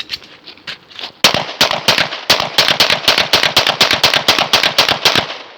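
AR pistol firing a rapid string of about two dozen shots, around six a second, starting a little over a second in and stopping near the end. A few fainter single shots come before the string.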